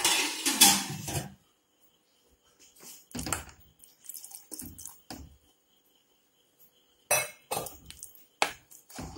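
Steel spatula scraping and knocking against an aluminium pressure-cooker pot while mashing and stirring thick cooked tapioca, loudest in the first second and a half, then in short scattered clatters with quiet gaps. Partway through, water is poured into the pot from a steel tumbler.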